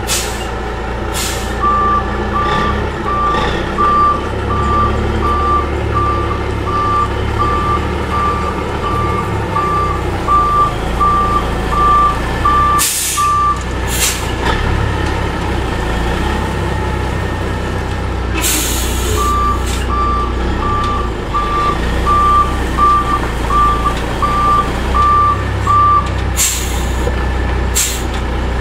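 Diesel dump truck backing up, its engine running low and steady while its reversing alarm beeps about one and a half times a second in two runs with a pause between. Several short sharp hisses of the air brakes, the longest just before the second run of beeps.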